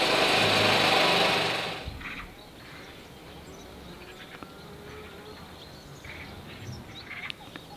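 A loud, steady machine-like noise with a low hum cuts off suddenly about two seconds in. It gives way to a quiet outdoor background with a few faint bird chirps.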